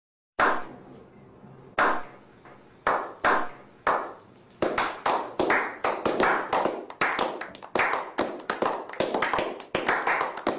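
Slow clap: single hand claps about a second apart at first, quickening and joined by more hands until a small group is applauding.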